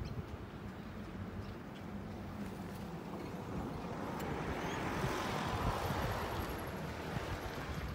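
Outdoor background with a steady low hum, under a swell of noise that rises over a couple of seconds, peaks past the middle and fades again, as a vehicle passes by.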